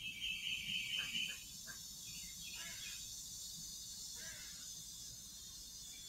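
Backyard wildlife: a harsh, grainy call for about the first second and a half, then a few short separate chirps, over a steady high insect hiss.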